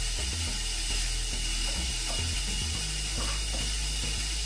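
A few faint clicks from a flat-blade screwdriver turning the adjustment screw in a toilet seat hinge, over a low steady hum.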